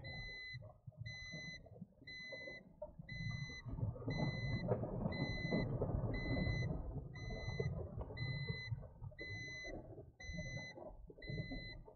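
A Suzuki car's dashboard warning beep repeating about once a second, each beep short and even, over the low rumble of the car's engine and cabin.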